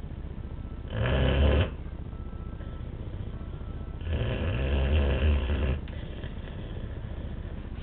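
Boxer dog snoring in its sleep, its loose lips flapping: a short loud snore about a second in and a longer one around four to six seconds in.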